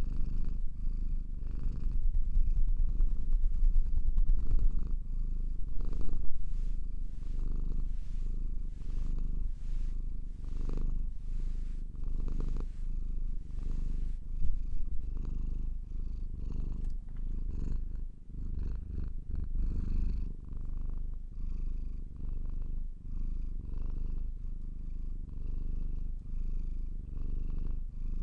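Domestic cat purring: a continuous low rumble that swells and eases with each breath.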